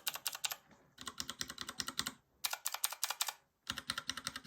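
Fast typing on the Astrohaus Freewrite's mechanical keyboard with Cherry MX blue switches: rapid crisp key clicks in four runs, with short pauses about one, two and a quarter, and three and a half seconds in. These are the louder, clickier switches.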